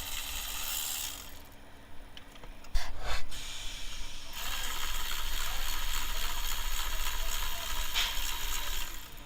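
Ratchet wrench working on the engine's spark plugs: a few sharp clicks about three seconds in, then a steady rasping run from about four and a half seconds until near the end.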